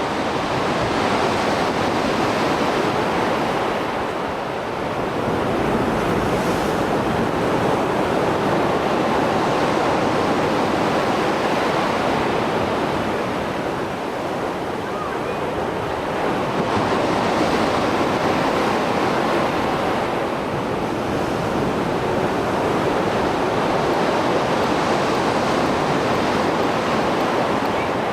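Sea waves surging and breaking on the shore in rough water after a storm, a continuous wash of surf that swells and eases every several seconds.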